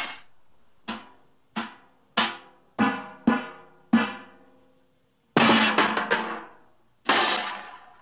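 A string of cartoon crash sound effects: six sharp hits with ringing, pitched tails, about half a second apart. About five and a half seconds in comes a loud crash lasting over a second, and another starts just after seven seconds and fades away.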